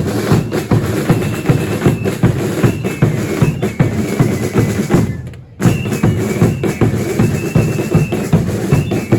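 Drums of a religious dance troupe beating a fast, steady rhythm, with a high held tone above them that steps between a few pitches. The playing stops briefly about five seconds in, then resumes.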